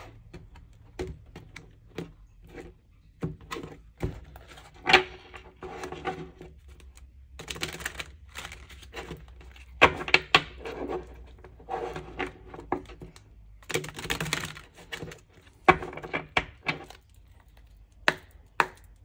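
A deck of tarot cards shuffled and handled by hand: irregular rapid clicks, rustles and slaps of the cards, with a few sharper knocks.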